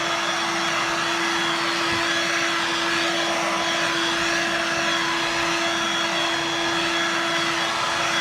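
Dirt Devil Vibe corded bagless stick vacuum running steadily: an even rush of air with a constant hum from the motor.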